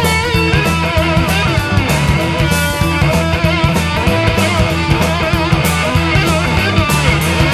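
Instrumental blues-rock band recording: electric guitars over bass guitar and a steady drum beat, with a wavering, bending lead line on top.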